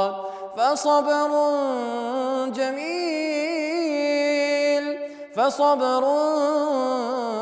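A man's voice chanting Quranic recitation melodically, drawing out long, ornamented notes that waver up and down in pitch. Two long phrases, with a short pause for breath about five seconds in.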